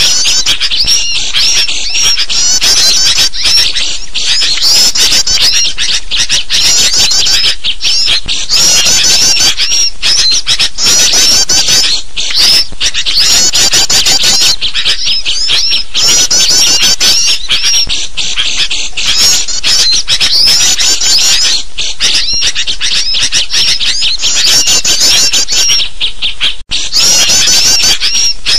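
Loud, dense chattering of small songbirds mixed with the calls of sooty-headed bulbuls, a bird-lure recording meant to draw wild birds in. The calls come in rapid high-pitched runs with hardly a pause, broken once by a split-second gap near the end.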